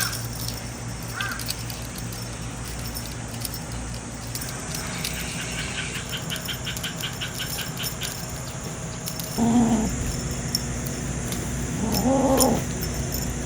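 A domestic cat meowing twice, two short calls about two and a half seconds apart in the latter half, over a steady low hum. Earlier, a rapid run of light crackles lasts a couple of seconds.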